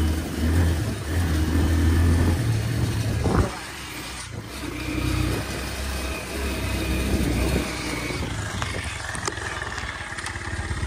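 Motorcycle engine running as the bike rides along a rough dirt track. A single knock comes about three and a half seconds in, after which the engine runs quieter.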